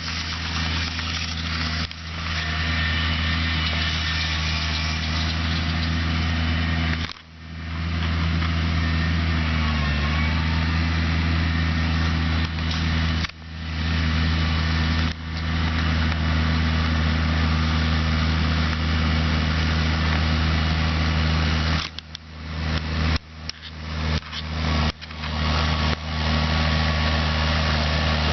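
Case IH Maxxum 140 tractor's diesel engine running steadily, its pitch dipping briefly about ten seconds in as it takes load. The sound cuts out briefly a few times, with a run of short breaks near the end.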